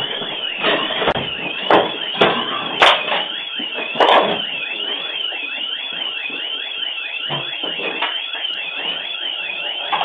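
Electronic burglar alarm siren going off, a high tone warbling up and down about twice a second without a break. Several loud knocks and bangs sound over it in the first four seconds, the loudest about three seconds in.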